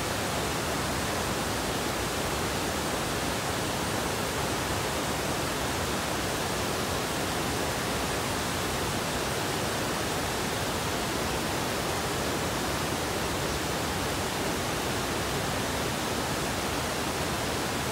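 River water rushing over a series of low stepped weirs and cascades: a steady, even rush that does not change.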